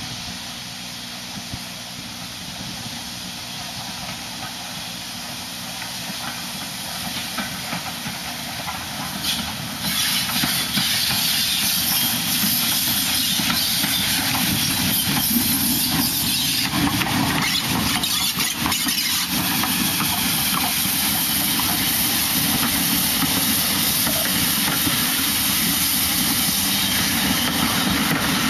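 LMS Ivatt Class 4MT 2-6-0 steam locomotive No. 43106 drawing closer, growing slowly louder, then passing close with a loud hiss of steam from about ten seconds in. Its coaches follow, rolling by steadily.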